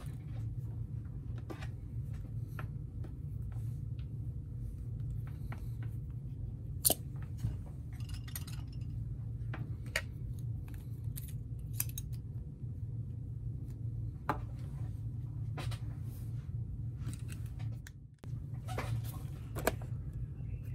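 Light clicks and taps of small tools and parts being handled at a workbench, scattered irregularly over a steady low hum.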